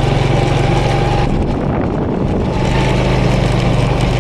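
Honda scooter engine running as it rides along, a steady engine note under road and wind noise. About a second in the engine note drops away for a second or so, then picks back up.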